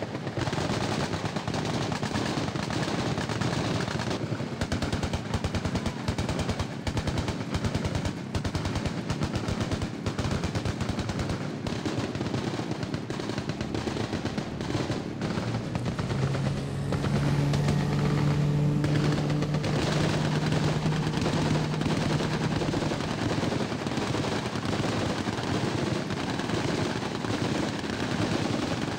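Sustained machine-gun fire from guns mounted on a riverine patrol boat: rapid shots in long, dense strings. Around the middle, a low steady drone joins in for several seconds.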